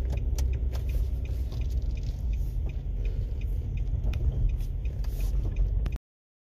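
Steady low rumble of a moving car, with scattered small clicks and rattles; it cuts off abruptly about six seconds in.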